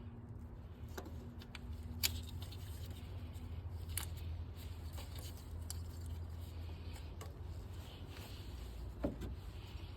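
Light clicks and handling of small engine parts being fitted by hand, with three sharper knocks about two, four and nine seconds in, over a low steady hum.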